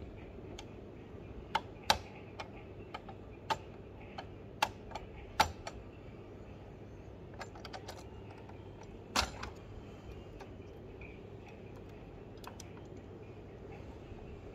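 Light, irregular clicks and taps from a 1:18 diecast model car being handled: fingers and the model's small metal and plastic parts knocking against each other and the plastic base. The clicks cluster in the first six seconds, with a sharper one about nine seconds in, then only faint ticks.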